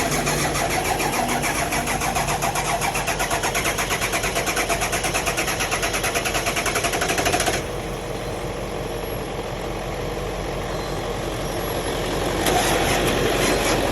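Ford F-250 engine cranking on its starter without catching, a fast even chugging rhythm; the cranking stops abruptly about halfway through, and cranking starts again near the end. The engine won't start.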